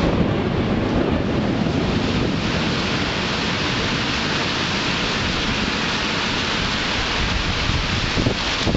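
Heavy rain and wind in a thunderstorm: a steady rushing hiss, with wind buffeting the microphone.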